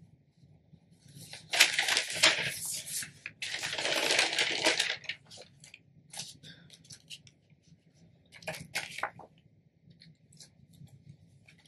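Rustling and crinkling of a heat transfer vinyl sheet on its plastic carrier as it is laid on the heat press and smoothed flat by hand: two longer rustles in the first few seconds, then scattered small crackles.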